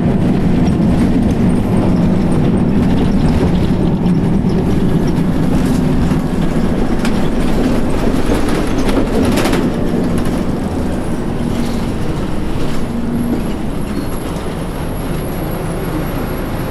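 2004 New Flyer D60HF articulated bus running, its Detroit Diesel Series 50 EGR four-cylinder diesel and Allison B500R transmission giving a steady low drone. The engine tone fades and the overall sound eases off in the second half.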